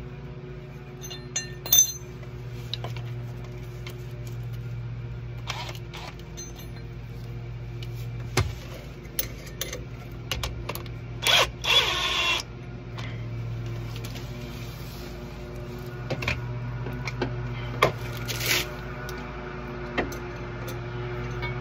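Hand tools working on a truck's sway bar link end and bushing bolts as they are tightened: scattered metallic clicks and knocks, with a longer rattling burst about halfway through. A steady low hum runs underneath.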